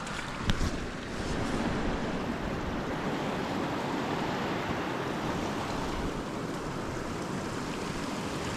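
Steady rushing wind noise buffeting the microphone, with a short sharp knock about half a second in.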